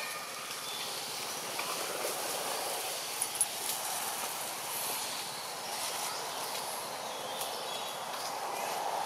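Steady outdoor background noise, with a few faint high chirps and two small clicks a little over three seconds in.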